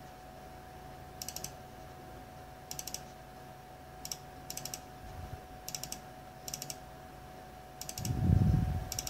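Computer mouse clicking: about eight short bursts of quick clicks, spread a second or so apart, as folders are double-clicked open one after another. A faint steady electrical hum runs underneath. A louder low muffled sound comes near the end.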